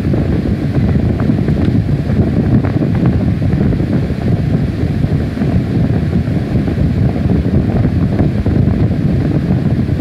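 Steady, loud low rumbling noise, like wind buffeting a microphone, with a few faint clicks in the first few seconds.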